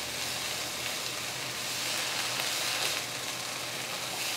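Cauliflower and green onions sizzling in a nonstick frying pan over high heat as they are stirred with a spatula, with a steady hiss. The liquid has nearly cooked off and the cauliflower is starting to caramelize.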